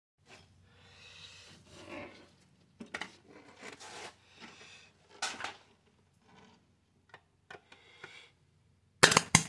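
Irregular scraping and rustling of metal rods being handled over a circuit board, then a loud, sharp crackle about nine seconds in.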